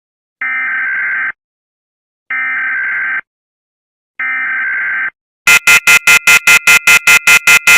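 Mock Emergency Alert System broadcast: three identical electronic data bursts, each just under a second long with about a second of silence between them, the SAME header. They are followed by a rapid pulsing alert tone at about five beeps a second.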